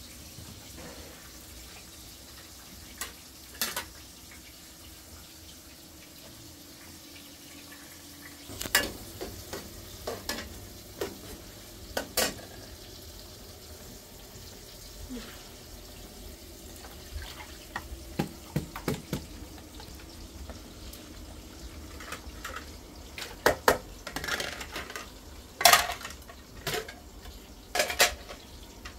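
Kitchen clatter of pots and dishes: scattered knocks and sharp clinks, coming more often in the last few seconds as ceramic plates are stacked into a plastic colander.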